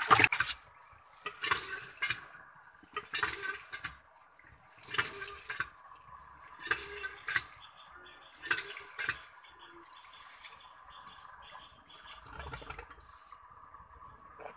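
Live striped snakehead (shol fish) thrashing in a metal basin of water, splashing and sloshing against the basin in short bursts every second or so, loudest at the start, then settling with one more splash near the end.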